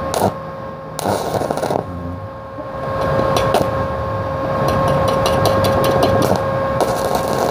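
Stick-welding electrode being scratched and tapped on a steel workpiece to strike an arc from a Benz MMA 120 inverter welder set to 120 amps: short sputtering crackles in several quick runs as the arc catches and dies, over a steady whine from the machine.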